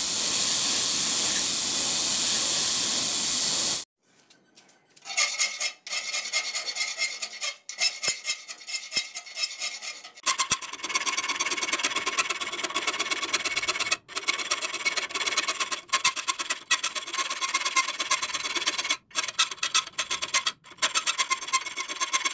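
A belt grinder running with a steady hiss for the first few seconds, cutting off abruptly. After a short pause, a hand file scrapes back and forth across the leaf-spring steel knife blade in repeated strokes, with brief pauses.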